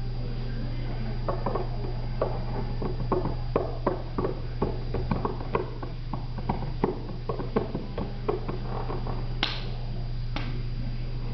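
A cat poking its head and paws at a small bucket: irregular light taps and clicks, a few a second, over a steady low hum, with two sharper clicks near the end.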